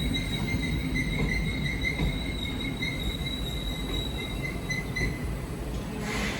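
Train moving in a station, a steady high-pitched squeal over a low rumble; the squeal fades out about five seconds in.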